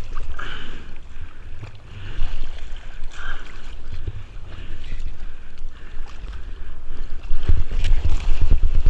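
Ocean water sloshing and churning around the microphone with a heavy, buffeting rumble, surging and easing, and loudest near the end.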